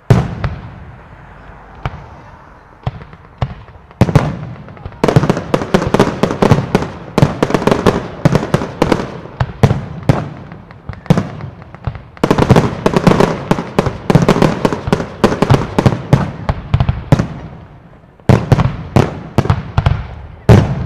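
Aerial firework shells bursting overhead in rapid volleys of sharp bangs. One loud report opens it and a few scattered bursts follow; from about four seconds in come dense runs of reports, which ease briefly twice and pick up again near the end.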